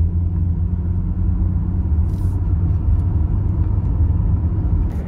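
A van driving at a steady speed, its engine and tyre rumble heard from inside the cabin as a steady low rumble.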